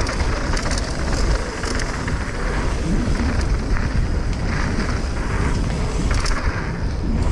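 Wind buffeting an action camera's microphone over mountain bike tyres rolling fast on a hard-packed dirt and gravel trail, with scattered clicks and rattles from the bike. The rush swells and eases in waves.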